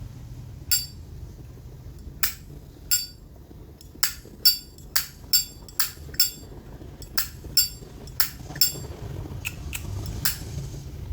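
Vintage Zippo lighter being worked by hand: about sixteen sharp metallic clicks, each with a short ringing ping, coming quicker in the middle.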